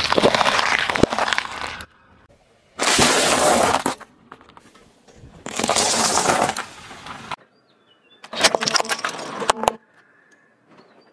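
A car tyre crushing things in four separate bursts of cracking and crunching, each one to three seconds long and each cut off abruptly: bell peppers bursting under the tread, a pile of candy-coated chocolates crunching, and small hard items snapping apart.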